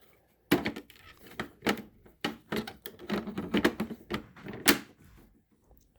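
Plastic clicks, knocks and rattles from the housing and parts of a Hoover PowerMax 2 upright vacuum being handled, a quick string of sharp clicks over about four seconds, the loudest near the end.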